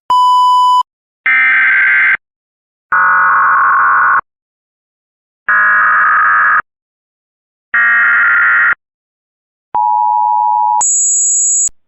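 Emergency Alert System broadcast tones: a short beep, then four buzzy electronic data bursts of about a second each (the SAME header), then a brief two-tone attention signal that jumps to a much higher pitch near the end.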